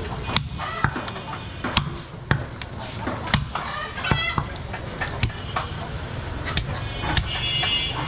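Meat cleaver chopping goat meat on a wooden chopping block: repeated sharp chops, irregular, about every half second. A high, pitched call comes in near the end.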